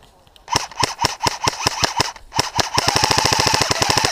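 Airsoft rifle firing: about half a second in, a string of single shots at irregular spacing, then after a brief pause a rapid full-auto burst with a steady mechanical whine under the shots.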